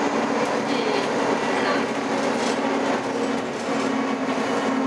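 Ride noise of a 2011 Nova Bus LFS city bus under way, heard from on board: a steady drivetrain hum over rumbling road noise. The hum dips briefly and comes back slightly changed about three and a half seconds in.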